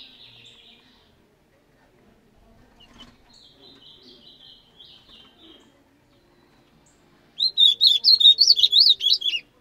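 A caged songbird singing: a faint twittering phrase in the middle, then about two seconds of loud, rapid notes that sweep up and down, near the end.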